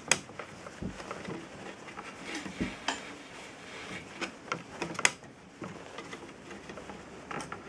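Braided nylon mason's line being wrapped around a wooden dogsled stanchion joint and pulled tight by hand: scattered clicks, taps and rustles of line and fingers against the wood. There are two dull low knocks, about a second in and near the middle, and the sharpest snaps come just after the start and about five seconds in.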